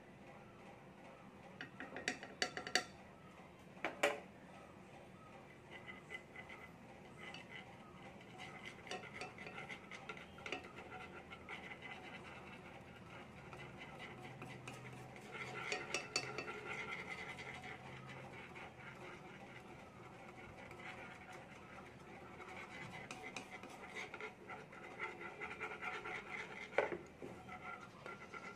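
A thin stick stirring baking powder into molten brown sugar in a nonstick frying pan, scraping and ticking against the pan, with a few sharp clinks about two to four seconds in.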